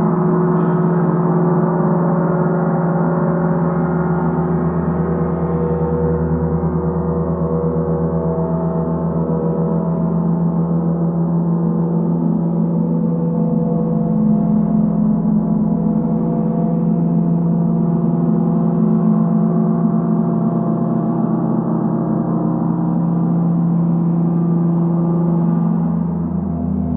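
Three gongs, a large centre gong and two smaller side gongs, ringing together in one continuous wash. Their many overlapping tones hold steady with a strong low hum and no separate sharp strikes.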